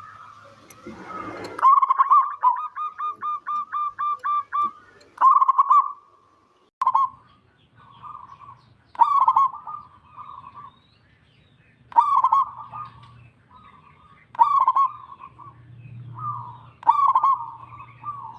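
Zebra dove (perkutut) cooing: a fast run of about a dozen short, evenly spaced coos, then repeated cooing phrases every few seconds.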